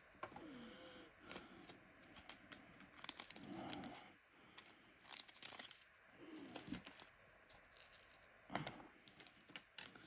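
Faint rustling and scattered small clicks of diamond-painting resin drills being handled, tipped about in a plastic drill tray and picked up with a drill pen.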